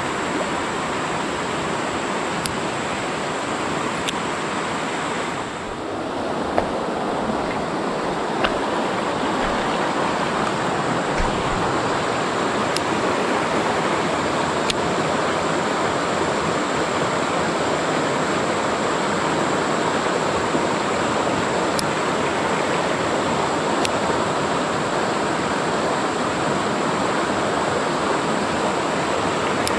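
Steady rush of a rocky mountain stream running through rapids. About six seconds in it dips briefly, then runs on a little louder, with a few faint clicks.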